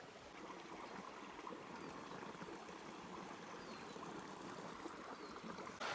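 Small brook trickling: a faint, steady rush of flowing water.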